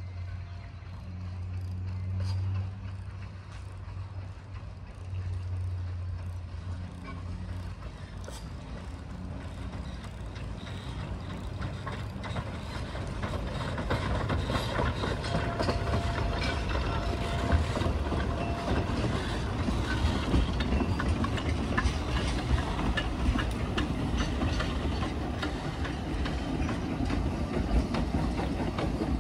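Narrow-gauge steam locomotive hauling wooden passenger carriages, drawing nearer and running past, with wheels clicking over the rail joints. It grows louder from about halfway through. A low hum comes and goes in the first several seconds.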